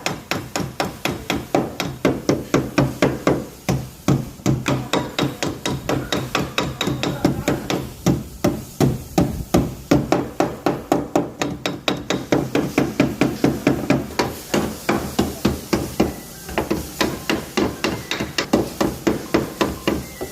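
Hammer blows on car sheet metal, struck steadily at about four blows a second with brief pauses: panel beating to straighten a dented rear body panel cold, without filler.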